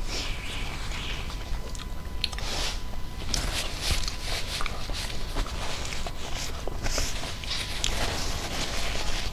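Close-miked chewing and mouth sounds picked up by a clip-on collar microphone, with the crinkle of a paper tissue as hands are wiped, in many small irregular clicks and rustles.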